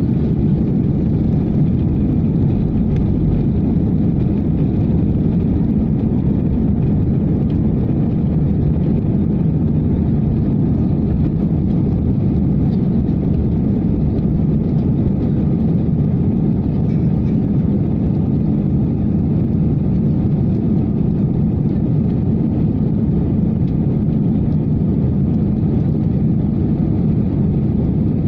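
Jet airliner's engines running steadily, heard inside the passenger cabin as a dense, even low rumble with no changes.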